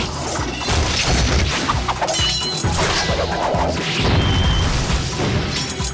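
Soundtrack of a glove-puppetry fight scene: dramatic background music under crashes, impacts and whooshes.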